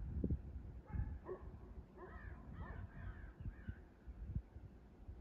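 Faint, distant barking and yipping: one short call about a second in, then a quick run of several calls, over a low wind rumble on the microphone.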